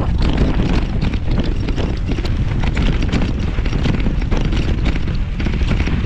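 Mountain bike descending a rocky dirt singletrack at speed, heard from a camera on the rider. Wind buffets the microphone, and the bike clatters with a quick run of knocks and rattles as it hits rocks and bumps.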